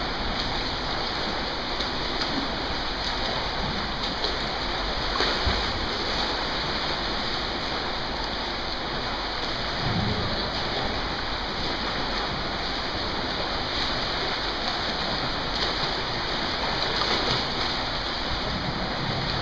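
Steady splashing and churning water from several swimmers swimming freestyle laps in an indoor lap pool.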